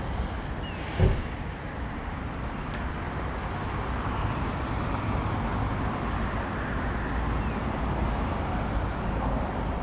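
Steady road-traffic rumble, with a single thump about a second in.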